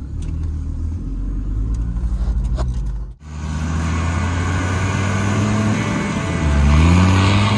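Off-road 4x4's engine running under load, with a steady low drone heard from inside the cab. After a break about three seconds in, the engine is heard again and revs up near the end.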